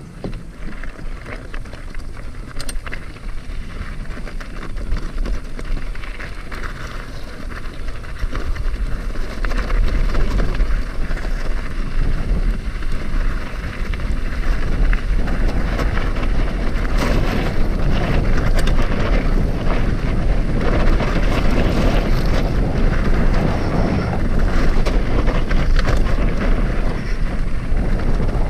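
Wind buffeting the microphone while on the move, over a low rumble with scattered rattles and clicks. It grows louder over the first ten seconds or so, then stays steady.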